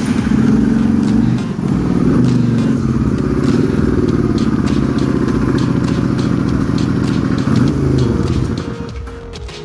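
Motorcycle engine running at close range, holding a steady low note with slight rises and falls, then fading away near the end.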